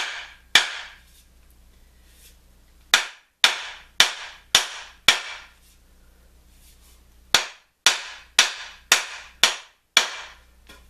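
Wooden mallet knocking on a wooden axe handle, driving it tight into the axe head: sharp knocks about two a second in runs of five or six, with short pauses between runs.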